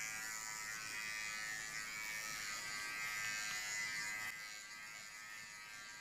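Xiaomi Enchen Sharp 3S cordless electric hair clipper running with a steady high buzz as it trims hair around the ear. It gets somewhat quieter about four seconds in.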